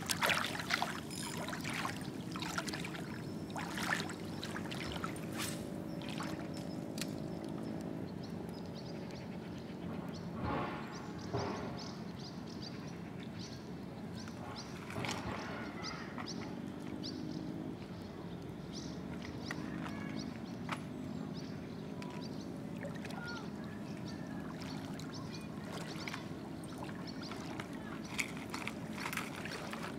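Shallow river water sloshing and splashing around legs wading through it, with scattered light clicks. A faint low droning hum comes and goes underneath.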